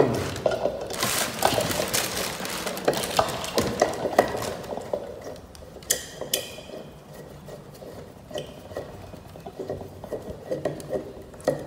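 Hand screwdriver turning blade-mounting screws out of the metal rim of a KDK ceiling fan's motor: small metallic clicks and scrapes of the tip and screws, busier in the first few seconds and sparser after.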